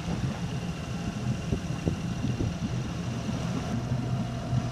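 A sailboat's inboard auxiliary engine running steadily under power, a continuous low drone.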